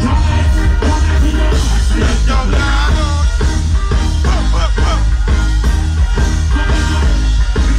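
Live reggae band playing loud through a stage sound system: a heavy bass line with drums and guitar, and a male vocalist singing over it, his voice rising and falling most clearly in the middle.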